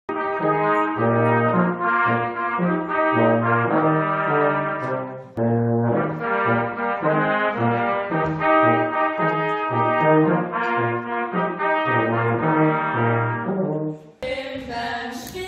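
A small brass ensemble of trumpets and a low brass horn plays a lively tune in harmony, with a brief break about five seconds in. The music stops shortly before the end.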